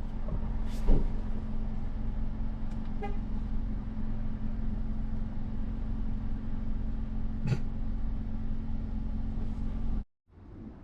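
Vehicle running, a steady low drone with a constant humming tone, broken by a couple of brief knocks; it cuts off abruptly near the end.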